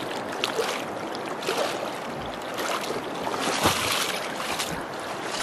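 River water rushing and splashing around legs wading through a deep river crossing, with irregular louder splashes as the wader steps across the stony bed.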